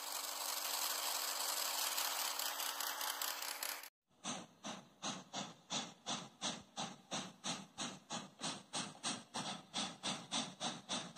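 A long, loud hiss of steam with a low steady tone held under it, cut off abruptly about four seconds in. Then a steam locomotive chuffs, its exhaust beating evenly about three times a second.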